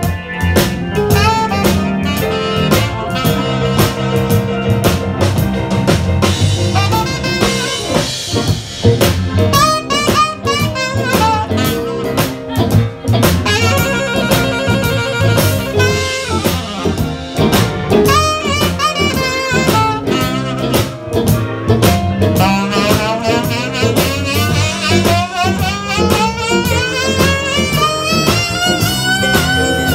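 Live blues band instrumental break: an alto saxophone solos over drum kit and steady low backing. It plays wavering held notes and quick runs, with a long climbing run near the end.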